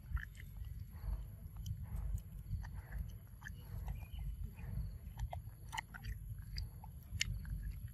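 A macaque chewing soft, juicy fruit: scattered small wet clicks and smacks of its mouth over a steady low rumble.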